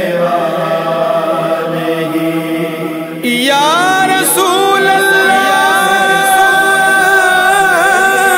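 Urdu naat sung by layered male voices: a steady chant-like vocal backing, joined about three seconds in by a louder voice holding long notes that glide up and down between pitches.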